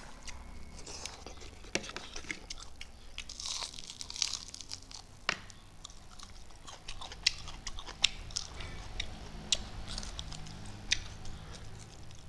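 Close-miked chewing of fried chicken wings and rice, with wet mouth smacks and sharp crunchy clicks every second or so.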